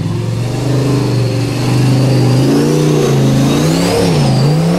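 Formula Offroad buggy engine held at steady revs, then revved up and down several times from about halfway as the buggy climbs a steep dirt slope. A high whine rises and falls along with the revs.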